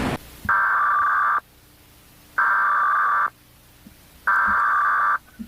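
Emergency Alert System SAME header: three identical bursts of digital data tones, each just under a second long, with about a second's pause between them. This is the coded header that opens an EAS broadcast alert.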